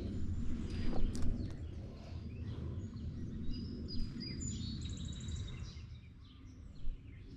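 Small birds chirping, with a quick high trill about five seconds in, over a steady low outdoor rumble.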